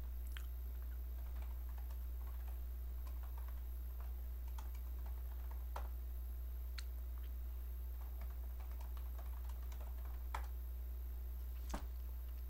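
Irregular light clicks and taps of a computer keyboard being typed on, over a steady low hum.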